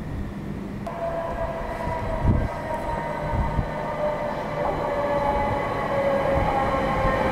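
Bombardier Electrostar electric multiple unit coming in, its traction motors whining in several steady tones that slowly fall in pitch as it slows and grows louder. A brief low thump about two seconds in.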